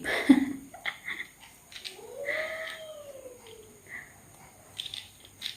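A domestic cat meows once, a drawn-out call that rises and then falls, about two seconds in. Light clicks and handling rustles come around it, from a furry windscreen being worked onto a small microphone.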